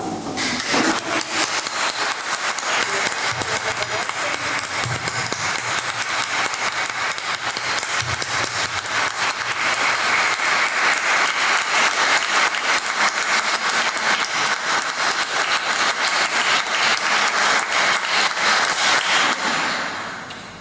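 Audience applauding: a steady patter of many hands clapping that swells about halfway through and dies away near the end.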